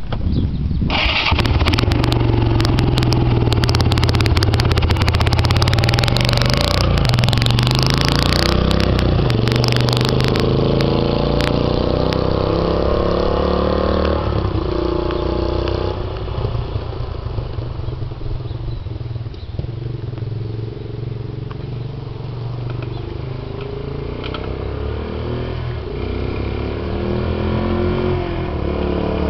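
Kawasaki Bayou 250 ATV's single-cylinder four-stroke engine running and revving, its pitch rising and falling as it pulls away. It fades as the ATV rides off down the street and grows louder again near the end as it comes back.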